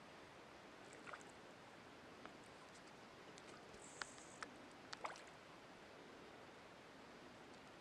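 Near silence: a faint steady outdoor hiss with a few small ticks and light water sounds, clustered around four to five seconds in.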